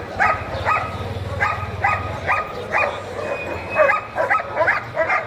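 A dog barking over and over in short, sharp barks, about two to three a second, with no let-up, over a low steady hum.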